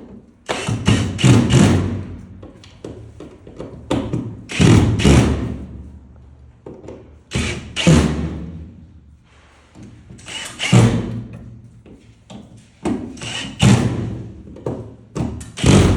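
Power drill driving screws one at a time in short runs, about six a few seconds apart, each run starting sharply and tailing off.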